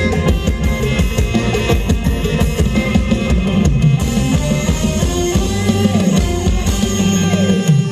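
Loud music with a drum kit and heavy bass, played over a Thai rot hae parade-truck sound system.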